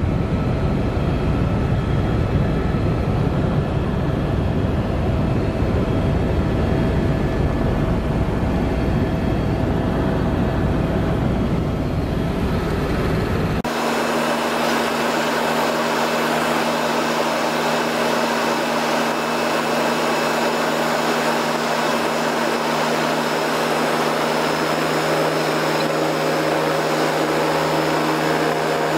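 Helicopter cabin noise: the steady drone of the engine and rotor heard from inside the cabin in flight. About halfway through the sound changes abruptly from a heavy, deep rumble to a thinner drone with steady humming tones.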